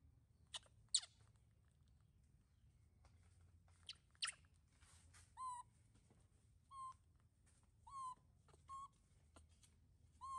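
Baby monkey giving a series of short cooing calls, five in the second half, about one every second or so. A few sharp clicks come in the first half, the loudest about a second in.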